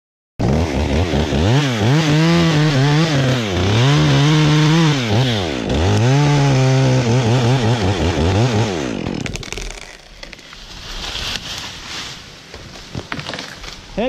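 Two-stroke chainsaw revving up and down again and again, its pitch swinging between near-idle and full throttle. About nine seconds in the engine sound drops away, leaving quieter irregular noise with scattered knocks.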